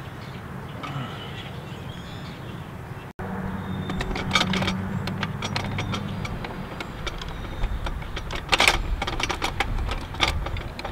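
Metal clicks and clinks of a Granberg chainsaw mill's brackets and bolts being fitted to a chainsaw bar, coming in short clusters. A steady low hum runs underneath.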